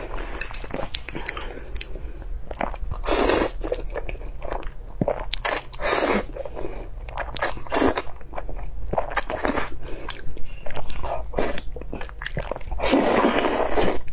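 Close-miked eating of spicy fire noodles: wet chewing and mouth clicks, broken by several loud slurps of noodles, the longest near the end.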